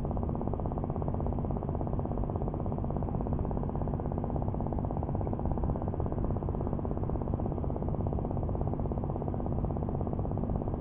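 A steady low mechanical drone with a fast, even pulse, like an engine running at a constant speed.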